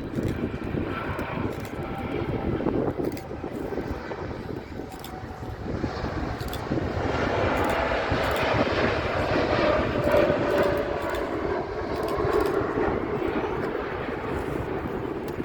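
Jet airliner's engines: a steady roar that swells to its loudest a little past the middle, with a whine running through it, then eases off as the aircraft passes.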